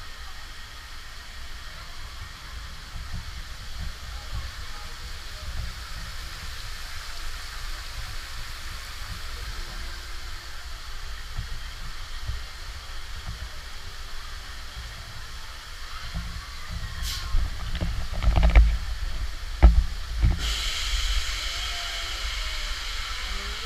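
Steady low rumble and hiss from a moving Dumbo the Flying Elephant ride vehicle, with a few sharp thumps near the end and the hiss growing louder just after them.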